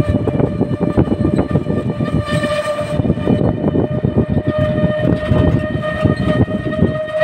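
Wind buffeting and road rumble from riding in an open-sided rickshaw, with a steady high whine from the vehicle running at an even speed.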